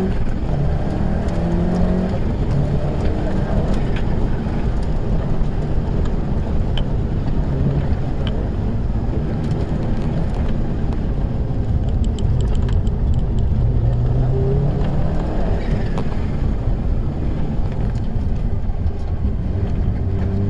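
A rally car's engine heard from inside the cabin, driven hard, with the revs climbing through the gears several times. Heavy road and tyre rumble and a few sharp rattling clicks run under it.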